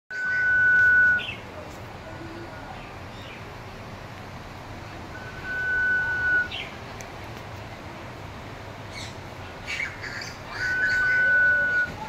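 Sunbittern calling: three long, thin, steady whistles, each about a second long and ending in a short upward flick, a few seconds apart. A few short chirps come just before the third whistle.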